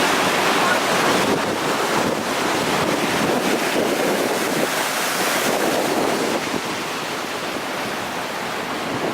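Mountain waterfall on the Kyzylkaya river: a steady rush of falling water that eases off slightly after about six seconds.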